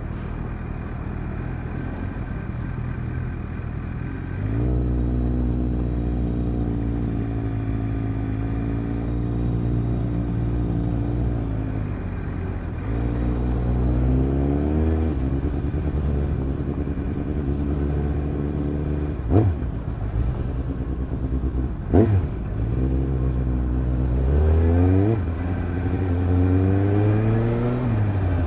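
Suzuki GSR750's inline-four engine through a Fuel stainless micro-mini aftermarket exhaust with its dB-killer fitted, pulling away at low speed in short bursts: the revs rise and drop back several times. Two sharp pops are heard in the second half.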